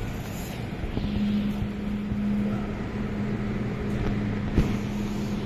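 Steady low hum of a metro train standing at an underground station platform, over a haze of station noise, with one sharp click about four and a half seconds in.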